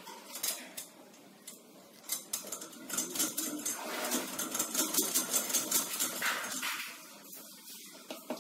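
A metal bucket being hauled up a well by rope, hand over hand: a quick run of clicks, knocks and metallic clinks from the rope and bucket, thickest through the middle.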